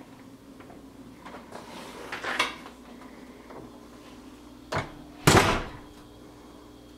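A few knocks and a short clatter, the loudest about five seconds in, over a steady low hum in a small room.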